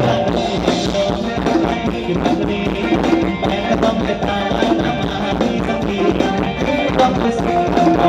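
Thai ramwong dance music from an amplified live band, with drums keeping a steady beat.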